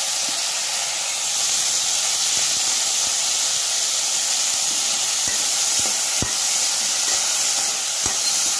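Tomato, onion, green chilli and curry leaves frying in hot oil in a kadai, a steady sizzle. A metal slotted spatula stirring them knocks lightly against the pan a few times in the second half.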